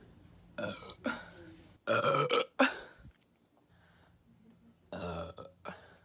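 A woman burping over and over: two short burps, then a louder, longer burp about two seconds in followed by a short one, and two more short burps near the end.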